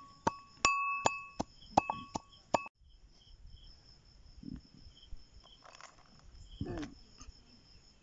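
Metal pestle pounding in an aluminium mortar: a quick run of sharp, ringing metal clinks that stops abruptly about two and a half seconds in. After that only faint crickets chirping, with a few soft clicks.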